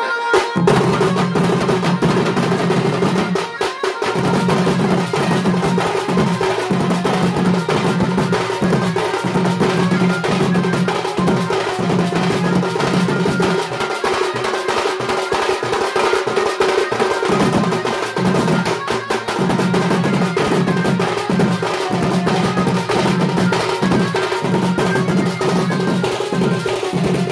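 Music driven by fast, dense drumming, with a low tone held in short repeating phrases underneath.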